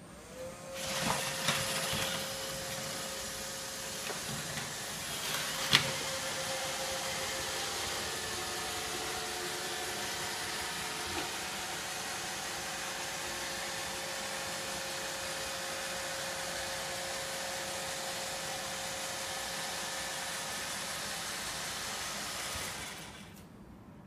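iRobot Roomba robot vacuum running its vacuum and brush motors as it drives across a wooden floor, a steady whirring with a constant whine, with a sharp knock about six seconds in. The motors cut off near the end as the robot settles onto its charging dock.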